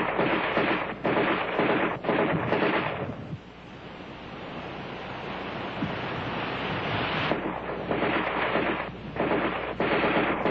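Bursts of automatic fire from an ArmaLite AR-10 rifle on an old film soundtrack: several long, rough bursts with short breaks, and a quieter, swelling stretch in the middle.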